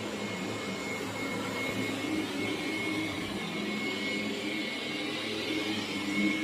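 Roborock Q7 Max robot vacuum running: a steady suction-motor whir with a thin high whine held over it.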